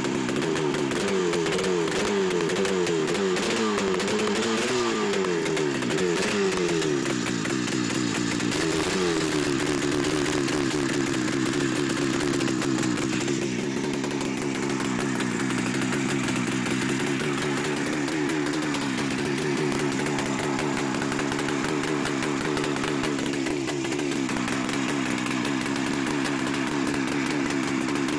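Buran snowmobile's RMZ-640 two-cylinder two-stroke engine running on a stand. Its revs rise and fall unevenly for the first several seconds, then settle to a steady, slightly wavering fast idle. The idle runs high because the freshly rebuilt engine's rings are not yet bedded in.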